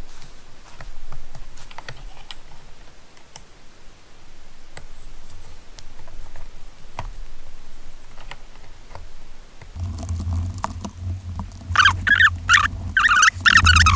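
Light clicks and taps of small plastic and metal RC car suspension parts being handled and fitted together by hand. From about ten seconds in a steady low hum starts, and near the end come several loud squeaky bursts.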